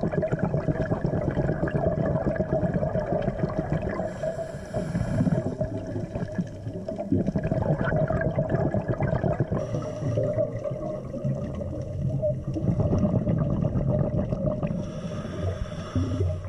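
Scuba regulator breathing heard underwater: continuous bubbling and gurgling of exhaled air, with a brief hiss recurring about every five to six seconds.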